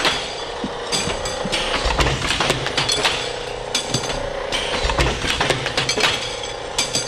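Automatic batch tube cutter cutting brake and fuel line tubing fed off a coil, cycling in a steady rhythm about once every two seconds. Each cycle brings metallic clanks and clinks as cut lengths drop into the bin, over a steady machine hum.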